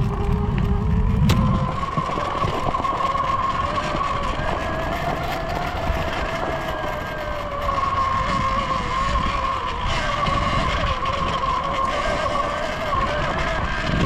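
Surron Ultra Bee electric dirt bike's motor whining while riding, its pitch rising and falling with the throttle, over a heavy wind and trail rumble that is strongest in the first second or so.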